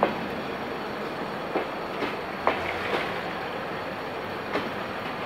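Passenger coaches rolling past, a steady rumble of wheels on rail broken by sharp clacks as wheel sets cross the rail joints, with a quick run of three clacks about halfway through.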